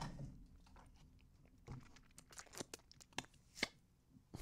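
Faint, scattered crackles and clicks from a clear plastic drink cup handled and drunk from, a handful of sharp crinkles spread over a couple of seconds.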